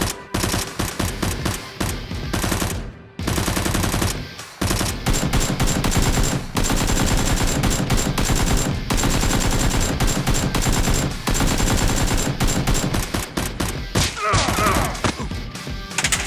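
Rapid automatic gunfire in long, dense bursts with a few short breaks, a battle of several guns firing at once. About two seconds before the end, a brief shout rises and falls over the shots.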